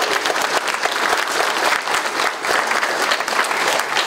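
Audience applauding: many hands clapping at once, steadily, at the close of a talk.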